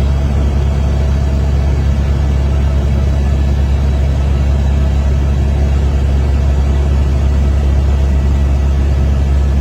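Helicopter in flight: a steady, loud engine and rotor drone that does not change.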